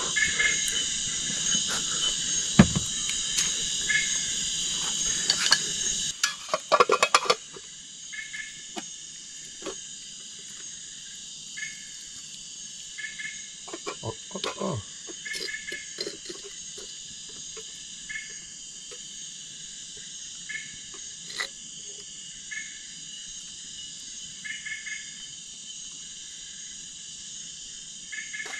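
Steady high-pitched chorus of crickets and other insects, with a short double call repeating every few seconds. A louder low rushing noise runs for the first six seconds and stops suddenly, and a few knocks and clinks of cookware come around seven seconds and again around fifteen seconds in.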